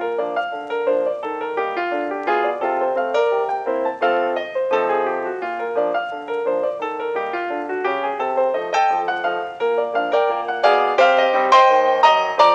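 Solo piano music: a stream of quickly struck notes and chords, getting louder near the end.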